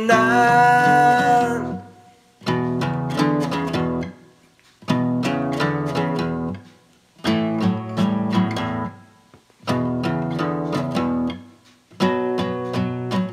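A song's instrumental break: acoustic guitar strumming chords in phrases of about two seconds, each followed by a short pause, after the last sung word is held at the start.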